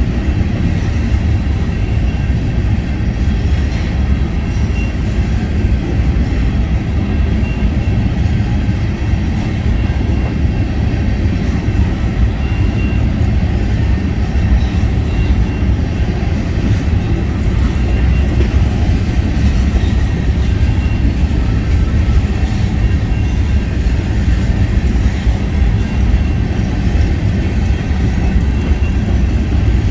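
A freight train rolling past: a steady, heavy rumble of wheels on the rails that holds without a break.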